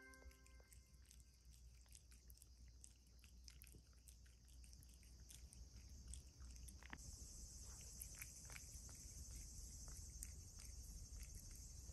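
Cats licking and chewing soft mango: faint, quick wet clicks and smacks from their mouths.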